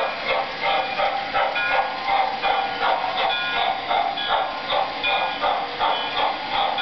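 O-scale MTH Pennsylvania 4-4-2 Atlantic model steam locomotive running, its sound system chuffing in a steady rhythm about three times a second with the wheels running on the track.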